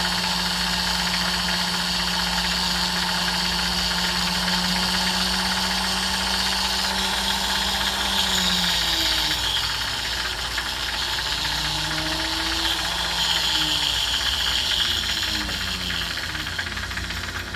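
Jeweler's rotary tool smoothing a freshly welded lobster claw clasp: the motor runs at a steady speed, then from about eight seconds in its pitch slides up and down as the speed is varied.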